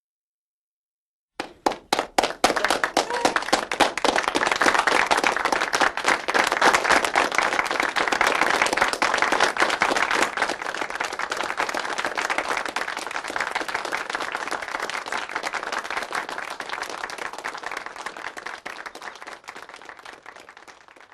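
Crowd applause: a few separate claps about a second in swell into sustained clapping, which then slowly tapers off.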